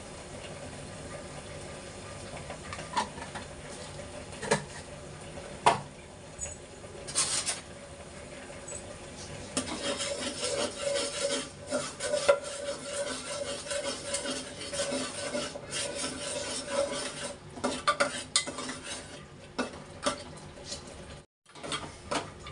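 Spoon stirring and scraping masala frying in an aluminium pressure cooker as spice powders go in, with clinks of metal on the pot and spice containers. A few separate clinks in the first seconds, then busy stirring and scraping from about ten seconds in.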